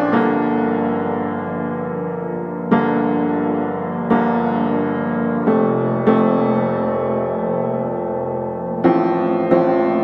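Background piano music: slow, sustained chords, a new chord struck every one to three seconds and left to ring.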